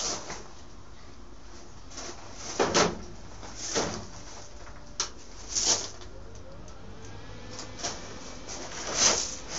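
Irregular knocks and clanks of metal being handled, about seven of them spread over several seconds, some ringing briefly, against the thin sheet-metal of a tool-chest welding cart.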